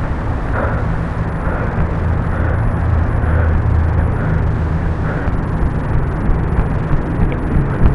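Steady low rumble of wind and movement noise on a body-worn camera's microphone while its wearer runs, with faint regular bumps about once a second.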